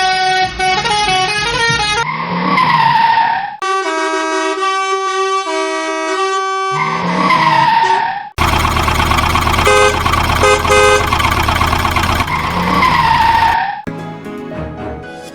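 Upbeat electronic background music, with a falling horn-like sound effect played over it three times.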